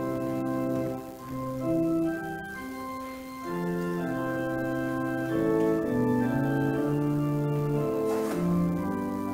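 Organ playing slow, sustained chords in several parts, the notes changing every second or so, as offertory music in a church service.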